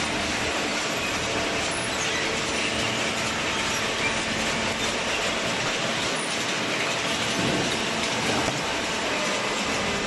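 Steady mechanical rattle and hum of a chain conveyor running, carrying cardboard up into a horizontal hydraulic baler.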